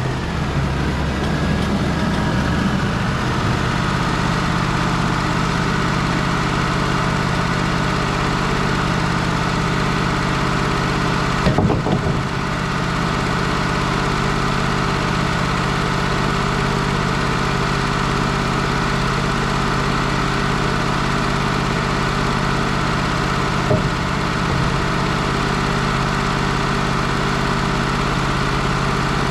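Wood-Mizer LT35 sawmill's engine running steadily at an even speed, with a single loud clunk about twelve seconds in and a lighter knock near the end.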